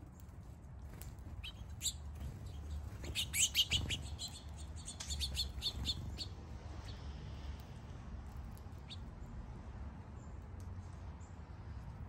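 Small songbirds chirping in a quick run of short, high notes, busiest and loudest a few seconds in, then dying away, over a steady low background rumble.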